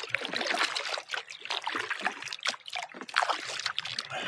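Kayak paddle strokes: the blades dipping and water splashing and trickling off them in an irregular patter.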